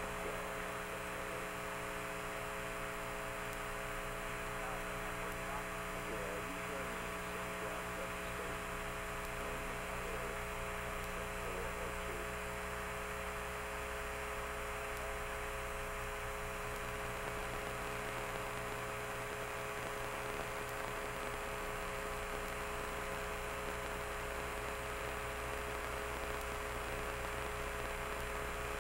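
Steady electrical hum with several fixed tones over a hiss, unchanging throughout: background noise of the recording or transmission.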